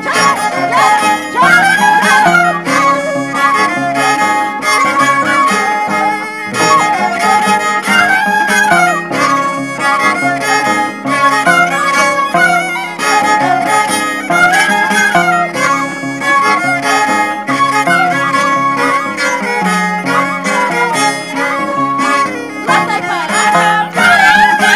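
Andean carnival music from Ayacucho: a violin plays a repeating melody over plucked string accompaniment and a stepping bass line.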